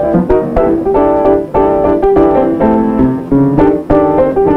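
Lively instrumental soundtrack music, led by quick, bright piano notes.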